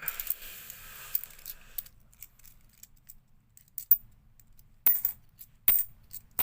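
50p coins being handled and set down: a soft shuffling for the first couple of seconds, then four or five separate sharp metallic clinks in the second half.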